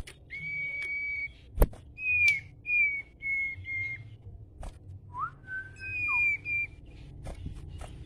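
A caged sirpu songbird sings in a steady run of clear whistled notes, mostly held at one high pitch with short downward slurs, and a lower rising-then-falling phrase a little past the middle. Sharp clicks come between the phrases, the loudest about a second and a half in.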